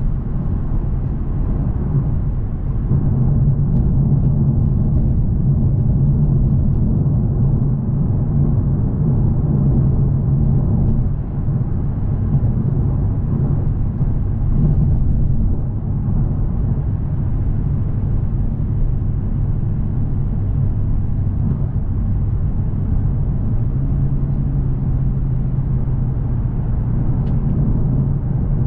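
Lexus RC F Track Edition's naturally aspirated 5.0-litre V8 running steadily while cruising, heard inside the cabin over tyre and road noise. The engine note swells a few seconds in, dips briefly around the middle, and picks up again near the end.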